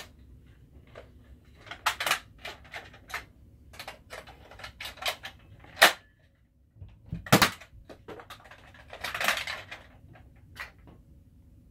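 A Nerf Sledgefire break-action blaster being worked by hand: a string of plastic clicks and clacks as the barrel is cracked open, a shell is loaded and the barrel is snapped shut. Two loud sharp snaps come near the middle, about a second and a half apart: the spring-powered blaster firing.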